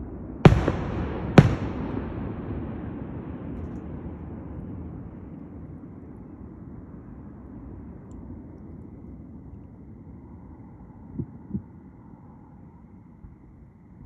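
Firework shells bursting: two loud bangs about a second apart, followed by a rumble that fades over several seconds, then two fainter pops near the end.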